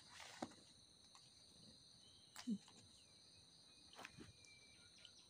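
Near silence, with the faint steady high-pitched chirring of insects in the background and a few soft brief knocks and rustles.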